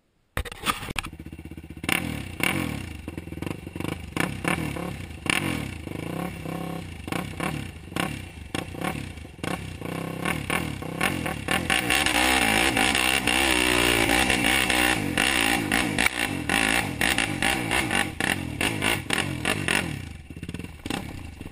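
Yamaha YFZ450 quad's single-cylinder four-stroke engine running under changing throttle as it rides over rough dirt trail, with rattles and knocks from the machine over the bumps. It cuts in suddenly about half a second in, is loudest and steadiest in the middle, and eases off near the end.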